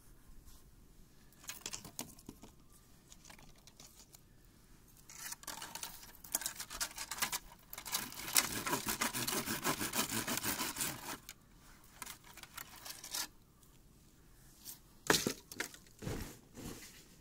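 Rustling and crinkling handling noise, heaviest in the middle, followed by a few sharp knocks near the end.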